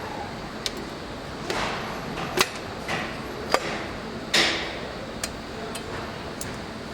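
Engine assembly-line work: sharp clicks and knocks of tools and parts at irregular intervals over a steady factory background. The loudest knock comes a little past halfway and is followed by a brief rush of noise.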